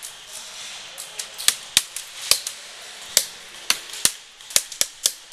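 Airsoft guns firing semi-automatic single shots, about ten sharp cracks at an irregular pace, starting about a second and a half in, with fainter clicks before.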